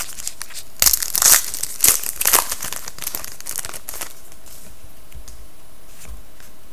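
Foil wrapper of a Panini Titanium hockey card pack being torn open and crinkled. There are several loud bursts of crinkling in the first two and a half seconds, then lighter rustling as the cards are slid out, dying away about four seconds in.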